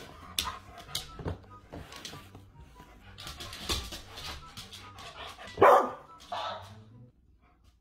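A dancing cactus toy plays a simple tune while a dog barks several times, the loudest bark a little past halfway. The tune and barking stop about seven seconds in.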